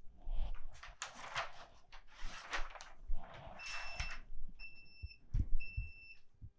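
Rustling and handling noises, then a heat press's timer beeping three times about a second apart, signalling that the press time is up.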